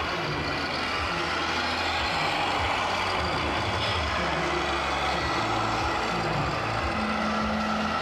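Diesel truck engine sound from a scale RC heavy-haulage truck's sound module, running steadily at low revs as the truck pulls a loaded low loader, over the even background noise of a busy hall.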